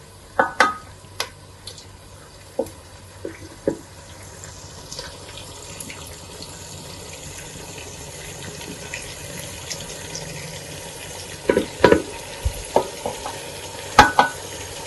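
Chopped tomatoes tipped off a plate into a pot of onions frying in oil: a soft, steady sizzle, with scattered knocks and clinks against the pot and plate, several in the first few seconds and again near the end.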